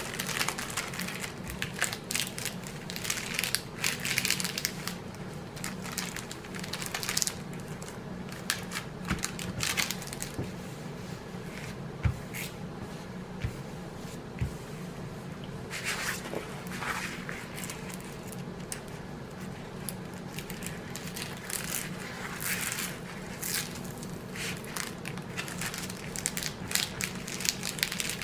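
Plastic packaging of a diamond painting canvas crinkling and crackling as it is handled and opened, with irregular rustles and small clicks throughout.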